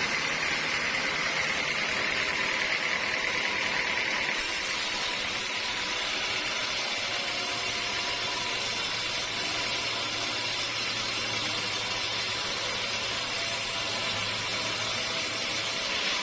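Sawmill machinery running steadily. About four seconds in the hiss grows brighter, and a low hum joins about halfway through.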